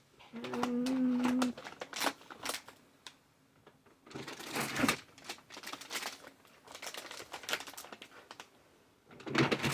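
Plastic candy packaging crinkling and rustling in irregular bursts as items are handled and packed into an Easter basket, with a brief steady hum lasting about a second near the start.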